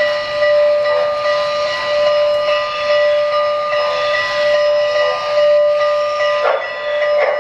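3-rail O gauge model train's onboard sound system blowing a long, steady whistle of several tones together. A few short puffs of noise come in near the end.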